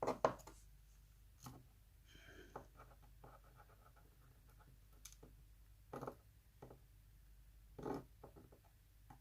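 Small lock parts and tools handled on a work surface: scattered light clicks and taps, the sharpest right at the start and a few more spaced a second or more apart.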